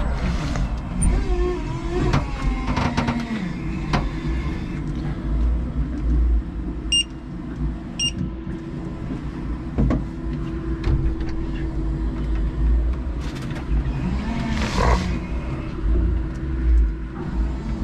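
5-ton electric forklift truck running, heard from the cab: a steady low rumble and motor hum with gliding tones and scattered knocks and clatter. Two short electronic beeps about a second apart come a little before the middle.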